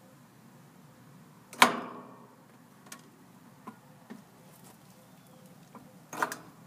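Metal clicks and clanks from a Schrader valve core removal tool being turned on an AC unit's pressurized service valve: one sharp clank with a short ring about a second and a half in, a few light ticks, then a quick clatter near the end.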